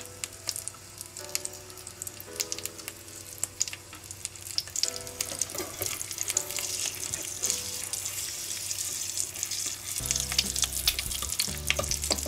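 Quail egg frying in bacon grease in a small pan: a steady sizzle with many fine crackles and pops.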